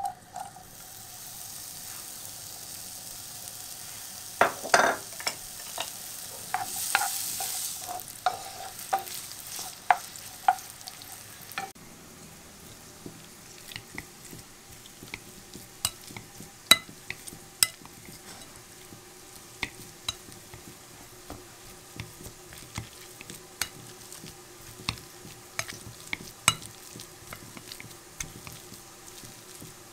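Diced onion sizzling as it hits hot oil in a frying pan, with a few sharp scrapes and knocks as it is stirred. About twelve seconds in, the sizzle cuts off and a metal potato masher presses boiled potatoes in a glass bowl, making irregular sharp clicks and taps of about one or two a second.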